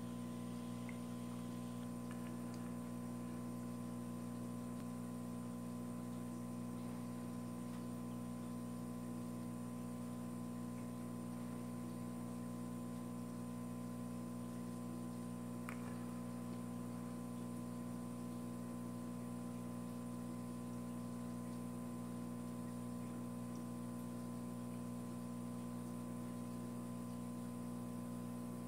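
Steady electrical hum with several overtones, unchanging throughout, with one faint click about halfway through.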